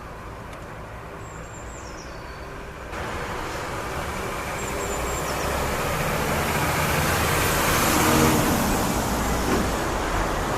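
A road vehicle approaching and passing by, its noise swelling to a peak about eight seconds in and its pitch dropping as it passes, over a steady traffic rumble. Two faint high chirps come in the first half.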